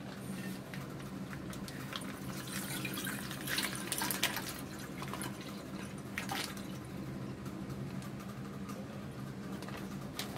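Milk pouring from a cut plastic pouch into a steel saucepan, a steady trickle with a few louder splashes around four and six seconds in. A steady low hum runs underneath.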